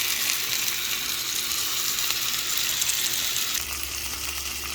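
Seasoned chicken breasts frying in hot oil in a pan, a steady sizzle. A low hum comes in near the end.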